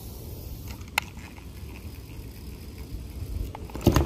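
Low rumble and handling noise as a child's plastic spincast rod and reel is worked, with a single sharp click about a second in and a louder knock near the end as the rod is swept up.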